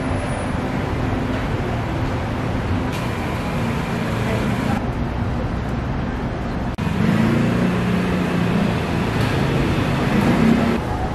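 Street ambience: steady traffic noise with people talking. About two-thirds of the way through it cuts abruptly to a louder stretch where voices stand out.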